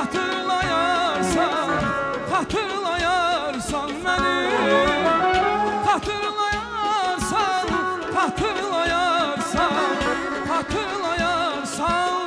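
A male singer performing an Azerbaijani song into a microphone with heavy vibrato and ornamented, wavering melody lines, over instrumental backing with drum hits.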